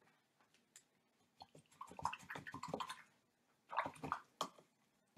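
A paintbrush being rinsed in a jar of water: splashing and clicking in two bouts, the first starting about a second and a half in, the second shorter, around four seconds in.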